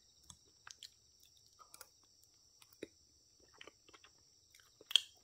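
Quiet eating sounds: faint chewing and small scattered clicks of a metal fork against a plate and a foil cake tray, with one sharp tap of the fork near the end. A faint steady high-pitched whine sits underneath.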